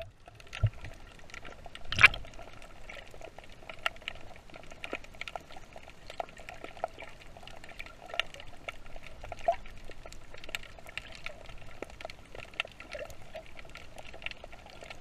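Underwater sound through a submerged action camera: a muffled watery wash full of small clicks and crackles, with a faint steady hum and one louder knock about two seconds in.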